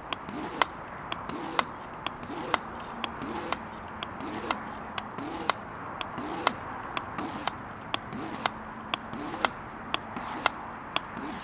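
High-pressure hand pump being worked at about two strokes a second, pressurising a sealed disposable lighter: each stroke gives a sharp click with a short metallic ring, and a low whine bends up and down between the clicks.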